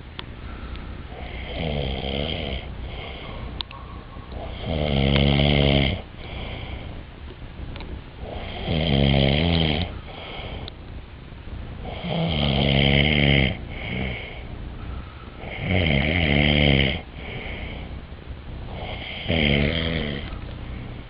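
A person snoring loudly: about six long snores, one every three and a half seconds or so, the first one fainter.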